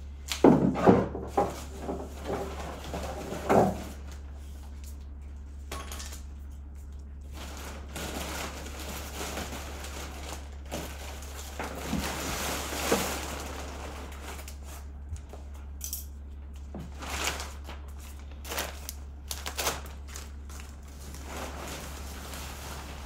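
Clear plastic shipping wrap crinkling and rustling as it is pulled off a new Kevlar canoe, with scattered light knocks and clinks from handling the hull. The bursts are busiest in the first few seconds, over a steady low hum.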